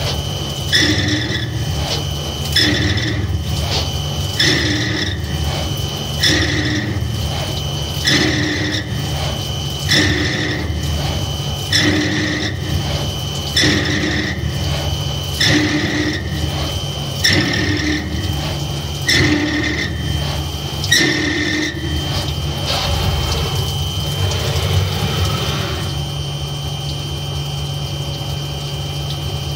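CNC lathe running with a steady hum and a high whine while the cutting tool makes about a dozen short, identical cuts, one every two seconds or so. The cuts stop a little after twenty seconds, leaving the machine running.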